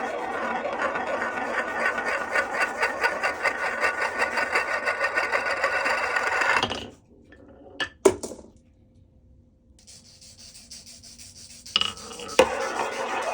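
Glass marbles rolling and clattering down a HABA wooden marble run, a fast steady rattle that stops about seven seconds in. A few sharp clacks follow, and the rolling rattle starts again near the end.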